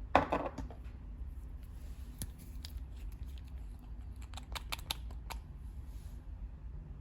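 Slime being handled and mixed: a louder squish just after the start, then scattered small clicks and pops.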